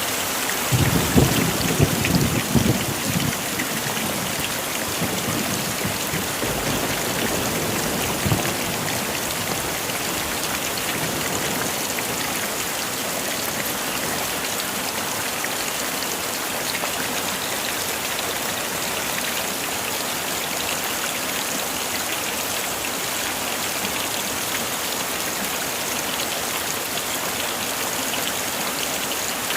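Heavy rain falling steadily in a dense, even hiss, with a brief low rumble of thunder about a second in.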